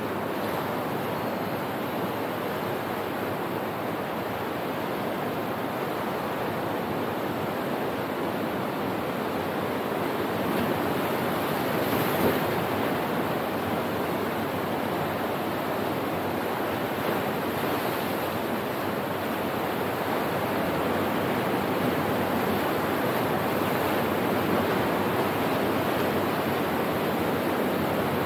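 Sea surf breaking and washing around shoreline rocks, a steady rush that swells briefly about twelve seconds in and grows a little louder toward the end.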